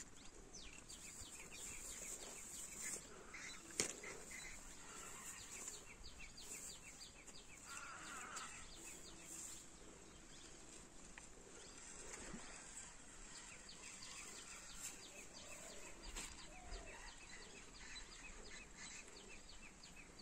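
Faint outdoor ambience: a steady high hiss with many short chirps repeated in quick series, and a single sharp click about four seconds in.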